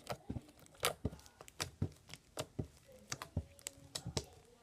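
Big fluffy slime squished and stretched by hand, giving off irregular small clicks and pops, a few each second.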